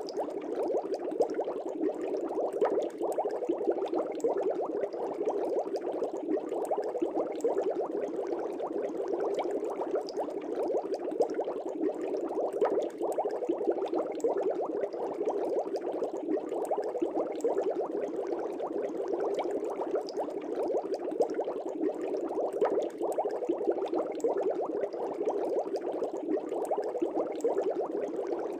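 Air bubbles streaming up through the water of an aquarium: a steady, dense bubbling made of many small bubbles.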